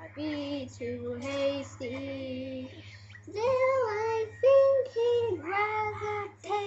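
Singing from an animated musical's soundtrack: several short sung phrases over light musical backing, with a brief break about three seconds in.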